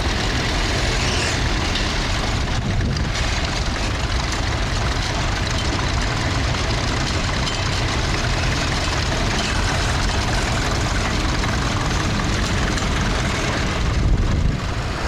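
Tractor engine running steadily, a heavy low-pitched engine sound.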